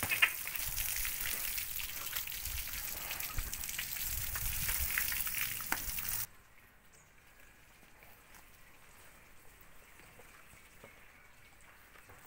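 Water from a hose spraying and spattering over a bull's hide, a dense steady hiss like rain. It cuts off suddenly about six seconds in, leaving only faint background.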